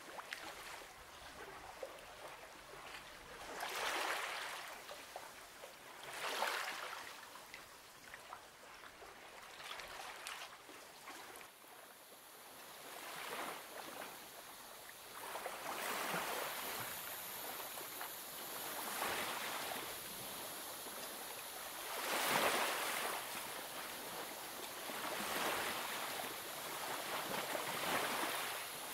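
Coloured pencil shading on paper: a soft scratchy hiss that swells and fades with each run of strokes, every few seconds.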